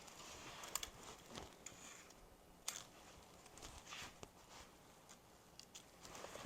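Faint scattered clicks, taps and short scrapes over a quiet background.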